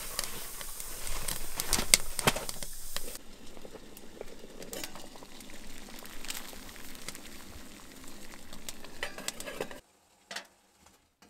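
Fire catching in a wood stove: kindling crackling with sharp pops over a hiss, busiest in the first three seconds, then quieter, cutting off near the end.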